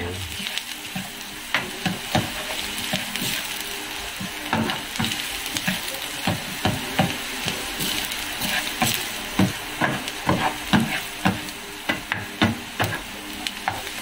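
Chopped onion and minced garlic sizzling in oil in a small nonstick frying pan, with a spatula scraping and knocking against the pan in irregular strokes as they are stirred.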